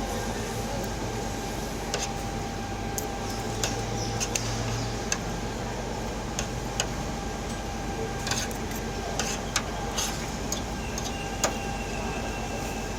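Busy eatery ambience: a steady hum with scattered short, sharp clinks of utensils and dishes at irregular times.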